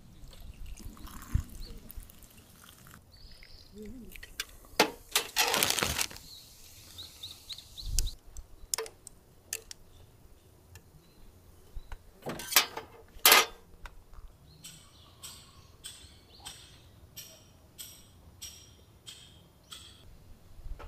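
ZIMA, a carbonated drink, poured from a can into a glass of frozen fruit pieces: a splashing pour about five seconds in, then fizzing. Then a long bar spoon stirring in the glass, with two sharp clinks about halfway and lighter clinks roughly every two thirds of a second after.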